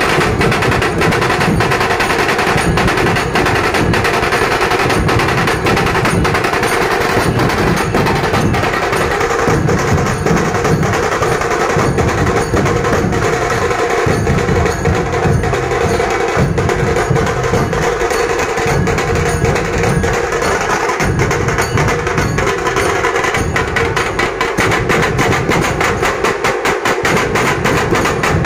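A dhol-tasha troupe playing: many large rope-tensioned dhol barrel drums beaten together in a loud, fast, unbroken rhythm, with sharp, rapid rolls over the top.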